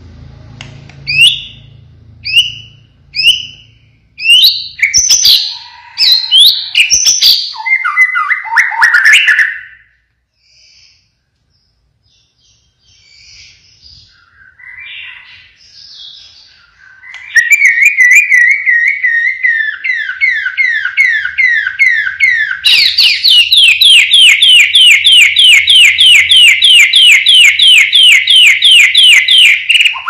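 White-rumped shama (murai batu) singing loudly. It gives a few sharp rising whistles and a varied phrase, falls nearly silent for a few seconds, then launches into a long, rapid run of repeated sweeping notes that grows louder past the middle. This is the fast 'siren shot' (tembakan sirine) song of a shama in full song (gacor).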